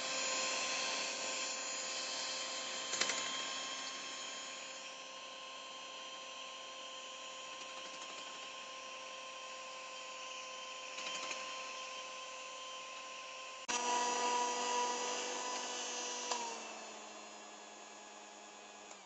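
Electric hand mixer running, its twin beaters whisking a white mixture in a glass bowl: a steady motor whine. It gets abruptly louder about two-thirds through, then drops slightly in pitch and fades near the end.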